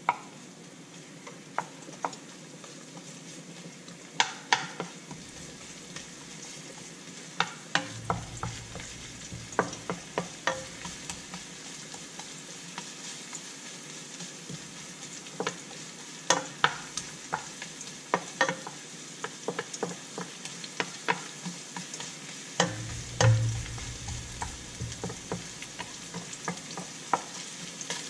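Sliced onions frying in oil in a nonstick pan with a steady sizzle, while a wooden spatula stirs them, scraping and clicking against the pan at irregular moments. Twice there is a short low thud.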